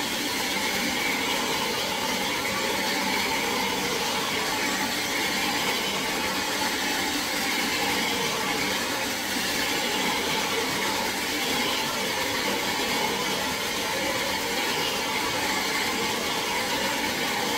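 Hair dryer blowing steadily at a constant speed.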